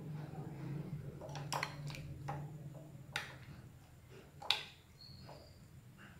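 Metal spoon stirring chicken in a buttermilk marinade in a glass bowl, with a handful of light clinks against the glass, the sharpest about four and a half seconds in, over a steady low hum.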